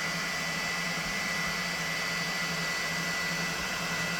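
Elegoo Neptune 4 Pro 3D printer's cooling fans running at high speed: a steady whooshing noise with a low hum and a thin high tone.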